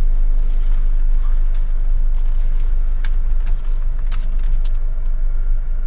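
Car rumbling from inside the cabin as it drives slowly, a steady low engine and road drone, with a few light clicks about halfway through.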